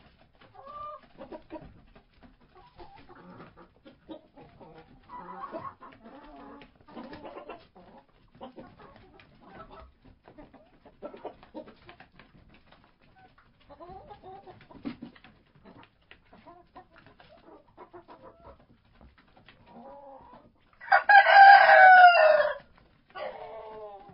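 Chickens clucking softly and intermittently in a hen house. Near the end a rooster crows once, loud and held for under two seconds, followed by a shorter, lower call.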